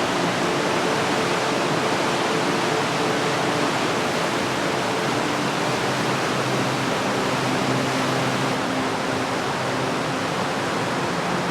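Creek in high spring flood rushing in a steady roar of water, swollen with snowmelt, with a faint low hum underneath.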